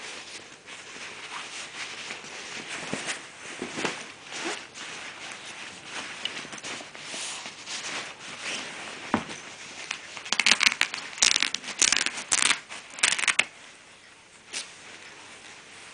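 Waterproof quilted nylon vest being handled: the fabric rustles and crinkles as it is folded and its lining and pockets are opened out, with a louder run of sharp crackling about two-thirds of the way through.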